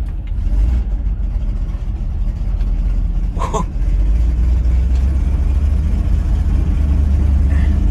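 Chevrolet C60 truck's carbureted engine running steadily with a low-pitched sound, just after starting on a freshly refitted carburetor. A short higher-pitched noise comes about three and a half seconds in.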